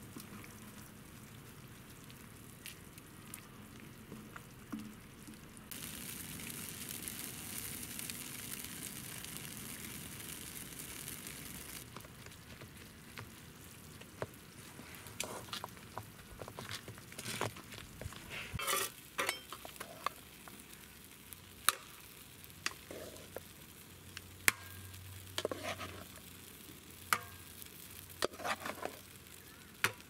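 Sausages in curry sauce sizzling in a metal frying pan, the hiss louder for several seconds from about six seconds in. In the second half a utensil stirs the pan, scraping and tapping against the metal in sharp clicks.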